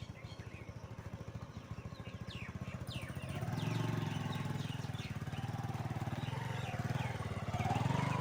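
An engine running with a fast, steady low throb. It grows louder about three and a half seconds in, and its pitch wavers and rises near the end. Birds chirp over it in the first half.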